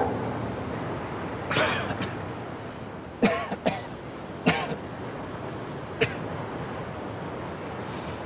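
A person coughing several times: a single cough, then two close together, then two more spaced out, each short and sharp, over a steady hiss of background noise.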